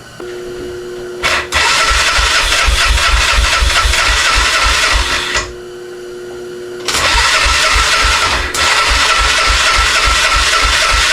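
1996 Honda Fourtrax 300's single-cylinder engine cranking over on the starter in two runs of about four seconds each, with an even low pulse of compression strokes, but not catching. The engine has been flooded with too much gas poured into the intake.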